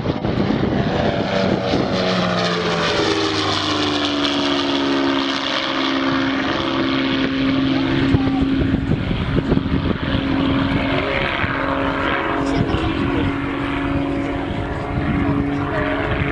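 Dornier Do 28's twin piston engines and propellers droning as the plane flies past. The engine pitch falls over the first few seconds, then holds steady.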